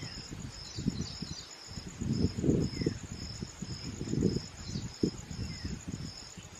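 A cricket chirping in a steady, even rhythm of high pulses, about two a second, with irregular low rumbling on the microphone.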